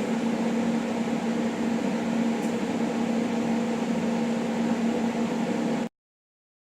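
Steady electrical hum with fan-like noise from workshop equipment, a strong low tone running under it. It cuts off abruptly about six seconds in.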